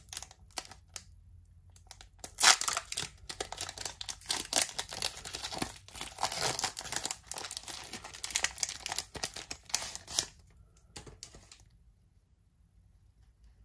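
Foil wrapper of a Pokémon Crimson Invasion booster pack crinkling as it is torn open by hand, in many short crackles; the crinkling stops about ten seconds in, leaving only faint handling of the cards.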